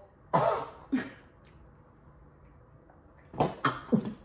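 Short coughing-like vocal bursts from people with breadsticks stuffed in their mouths: two near the start, then a quick cluster of about four near the end, during a contest to fit the most in before gagging.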